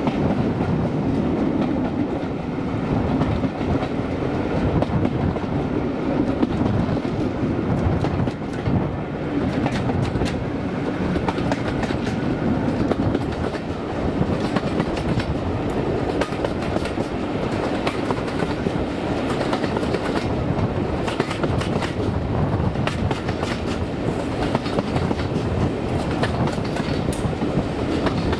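Passenger carriages running steadily on the track, heard close from the carriage window, the wheels clicking over rail joints again and again through the steady rumble, with the GWR 5101 Class steam tank locomotive working at the head of the train.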